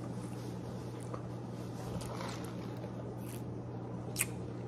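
Steady low hum of room noise, with a single sharp click about four seconds in as iced coffee is sipped through a straw from a plastic cup.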